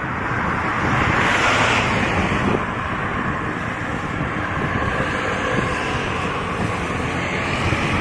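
Steady rushing wind noise on the microphone of a moving bicycle, mixed with road traffic.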